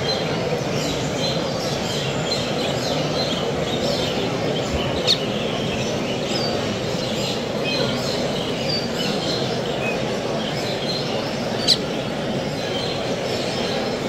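Many caged finches and other small songbirds chirping and singing at once over a steady background din of a busy hall. Two sharp clicks stand out, about five and twelve seconds in.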